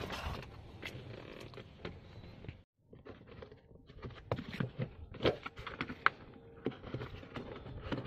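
Irregular clicks, knocks and scrapes of plastic car-interior trim and seat belt fittings being handled and worked loose on a Maruti Suzuki Ertiga.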